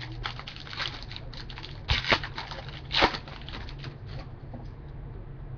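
Trading cards being handled and sorted by hand: a run of soft clicks and rustles, with two louder snaps about 2 and 3 seconds in.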